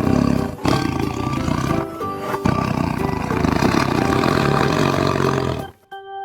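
Tiger roaring, several long, rough roars that stop near the end, played as a sound effect over background music with steady instrument tones.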